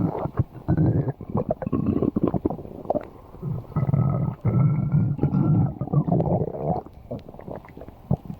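Stomach growling: a run of irregular rumbles with short pauses between them. The longest lasts about two and a half seconds in the middle.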